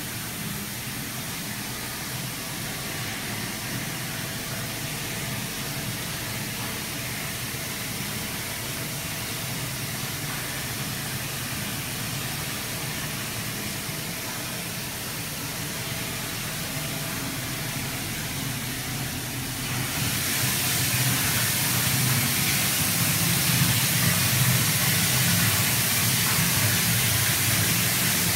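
Steady rushing hiss with a low hum beneath it, growing louder about twenty seconds in.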